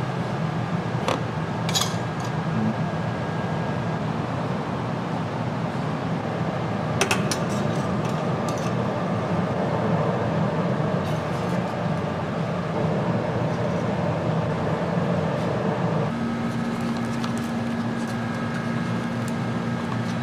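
A steady mechanical hum, like kitchen machinery or an exhaust fan running, with a few sharp clinks of metal or dishes. About sixteen seconds in the hum changes and a steady low tone comes in.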